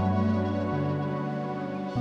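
Calm ambient background music of held, sustained chords that change under a second in and again near the end.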